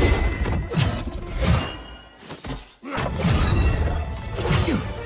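Film soundtrack of an animated fight scene: dramatic music with crashes and shattering. It drops out suddenly for a moment about two and a half seconds in, then comes back loud.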